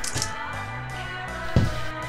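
Background music: sustained layered tones over a low beat, with a strong drum hit about one and a half seconds in.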